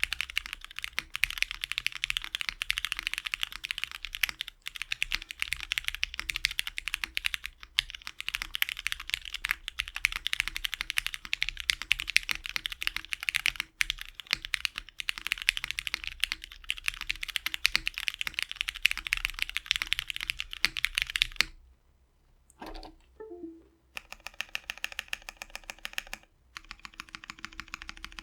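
Fast, continuous typing on a mechanical keyboard: a Tofukorn v2 polycarbonate board with lubed and filmed Cherry MX Black Hyperglide linear switches and doubleshot ABS keycaps. About three-quarters of the way through the typing stops briefly, then slower, more spaced-out keystrokes follow.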